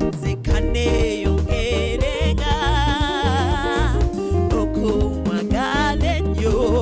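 Gospel worship music with a band beat, bass and guitar, and a voice holding long wavering notes for a few seconds, then again briefly near the end.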